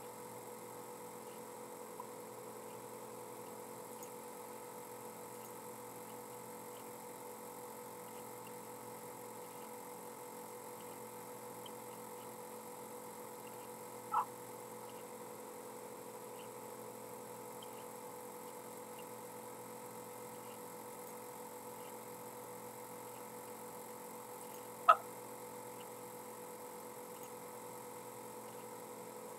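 Faint steady electrical hum with a thin high whine, broken by two short sharp clicks, one about halfway through and a louder one near the end.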